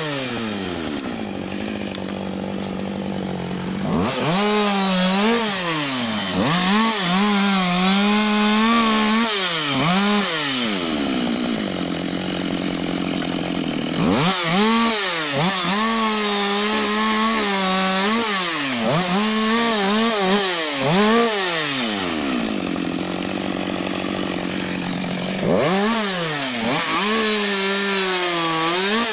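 Husqvarna 560 XP two-stroke chainsaw running, its engine speed rising and dropping again and again in three long spells, with steadier lower running in between.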